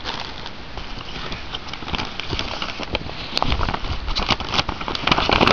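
Plastic and paper packaging being handled, crinkling and rustling as a dense run of small crackles that gets busier from about two seconds in.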